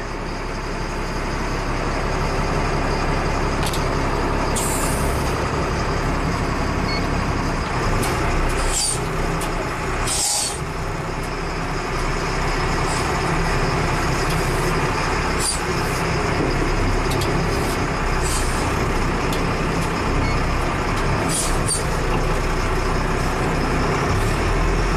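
Caterpillar 3116 diesel engine of a 1996 Stewart & Stevenson M1078 LMTV army truck running steadily under way, heard from inside the cab, with a few brief hisses and clicks.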